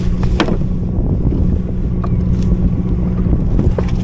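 Wind buffeting the microphone as a steady low rumble, with a few light clicks, the sharpest about half a second in.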